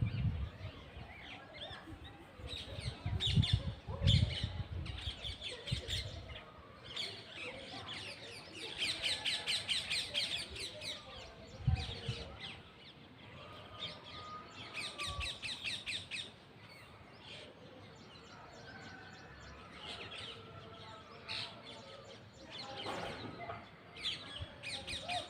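Parrots chirping and chattering in quick runs of repeated high notes. There are a few low thumps a few seconds in.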